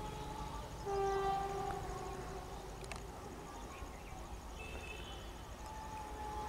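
Horn of an approaching WAG-5 electric locomotive sounding one blast of about a second, starting about a second in, over a steady low rumble.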